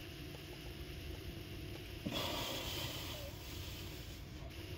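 A click about two seconds in, then about a second of scraping as a mower tire's rubber bead is levered over the wheel rim on a mini tire changer. A low steady rumble runs underneath.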